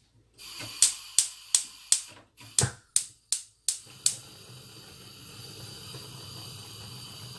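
Gas hob burner's spark igniter clicking about three times a second as the large burner is turned on full. The gas catches about four seconds in, and the clicking gives way to the steady hiss of the burning flame.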